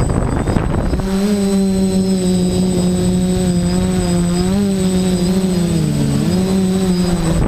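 DJI quadcopter's electric motors and propellers spinning up about a second in, then running with a steady hum whose pitch dips and rises as the throttle changes, over a rushing noise.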